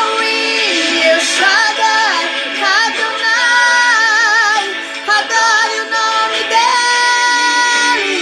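A woman singing a Brazilian Pentecostal gospel song over musical accompaniment, in long held notes with a wavering vibrato and slides between pitches, with no clear words.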